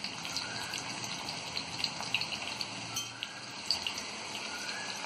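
Chicken 65 pieces deep-frying in hot oil in a kadai on full flame: a steady sizzle with many small pops and crackles. The pieces are still cooking and have not yet reached the maroon colour that means they are done.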